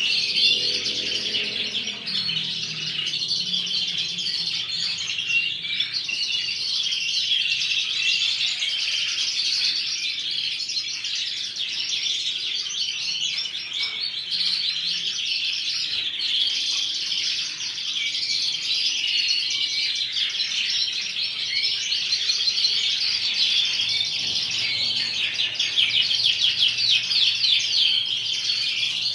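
Many caged canaries singing and chirping at once in a dense, unbroken chorus of rapid trills, as they do at first light.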